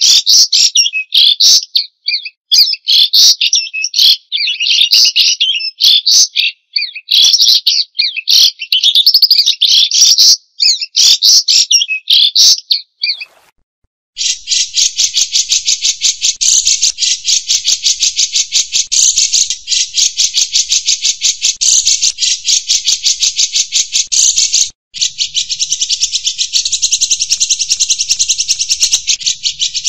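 White-rumped shama singing loud, varied whistled phrases for about the first 13 seconds. After a short pause, a dense, steady buzzing trill of very fast, even pulses takes over and runs on, breaking off briefly once about 25 seconds in.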